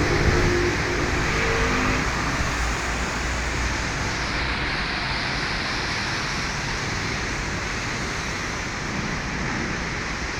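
Rain falling on a city street with passing traffic: a steady hiss of rain and tyres on wet road, with a vehicle's engine hum in the first two seconds.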